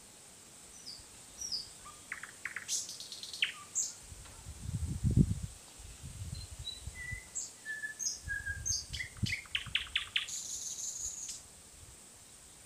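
Nightingale singing in varied phrases: short whistled notes, quick runs of repeated clicking notes, and a buzzy high phrase near the end, with short pauses between phrases.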